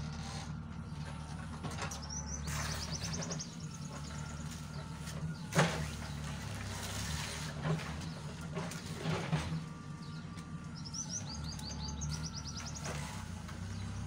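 JCB 3CX backhoe loader's diesel engine running steadily while it works, with a sharp knock about five and a half seconds in and a few lighter knocks after it. Birds chirp twice in quick high descending runs, near the start and again near the end.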